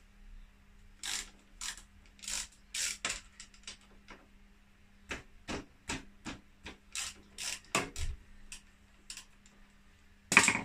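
Socket ratchet clicking in short irregular runs as 12 mm bolts are undone, with one louder metallic knock near the end.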